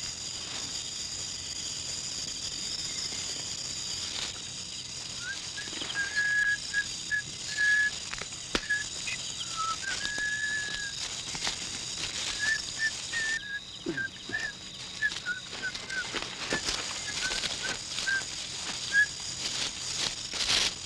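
A string of short whistled notes at about the same pitch, with one longer rising-and-falling note about ten seconds in, over a steady high drone of night insects.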